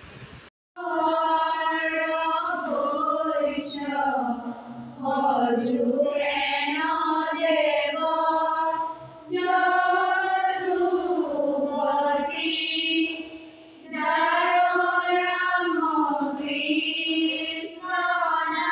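A group of girls singing a devotional prayer together in unison, in long sustained phrases with short pauses between them.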